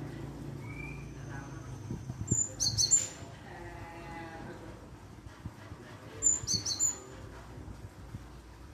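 Java sparrow (glatik) lure calls: two short bursts of high chirping notes, about two and a half seconds in and again about six and a half seconds in, over a low steady hum.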